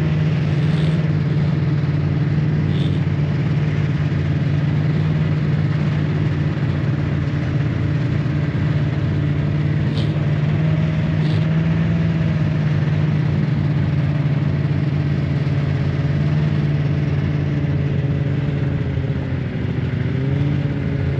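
Snowmobile engine running steadily under way, its note easing down briefly near the end.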